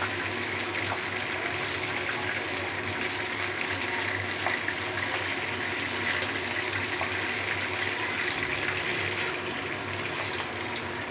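Chicken pieces sizzling steadily in hot oil in a kadai, with a few light knocks of a wooden spoon as they are turned. The chicken has been fried to a reddish golden brown.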